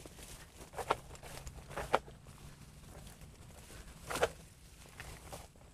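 Footsteps through tall grass: a few brief swishes and crunches of grass stalks being trodden and brushed aside, spaced roughly a second apart, the loudest about four seconds in.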